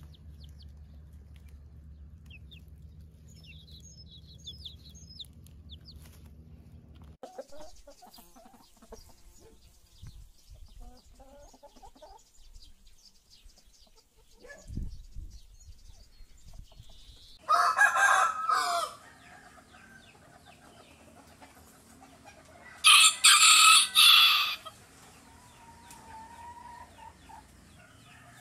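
Chickens: chicks peeping faintly at first, then hens clucking, and a rooster crowing loudly twice in the second half, the crows several seconds apart.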